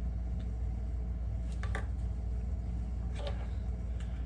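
Steady low room hum, with a few faint clicks and rustles of a small plastic capsule toy being handled.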